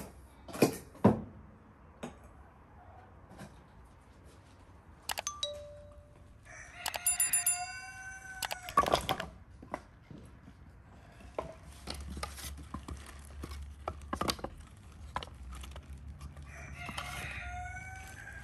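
A rooster crows twice, about seven seconds in and again near the end. In between there are scattered wooden knocks as split firewood is laid in a brick fire pit, and glass jars clink sharply a couple of times at the start.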